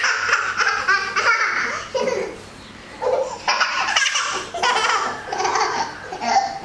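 A young girl laughing hard in three bursts with short pauses between.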